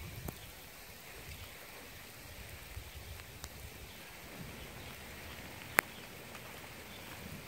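Light rain falling during a thunderstorm: a steady hiss over uneven low noise, with a few faint ticks and one sharp click near the end.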